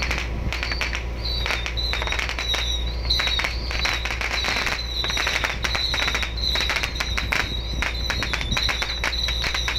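A string of firecrackers going off: rapid, irregular cracks many times a second, over the steady low drone of a boat's engine.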